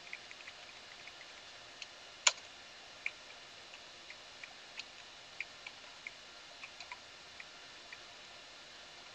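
Computer keyboard keystrokes: irregular single key taps, with one much louder tap a little over two seconds in.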